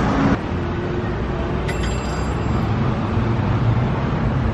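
Steady city street traffic noise, with a vehicle engine's low rumble growing stronger in the second half.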